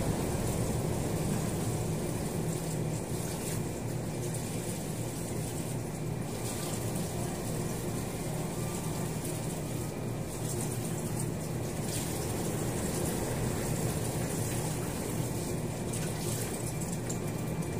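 Steady rush of water with no breaks.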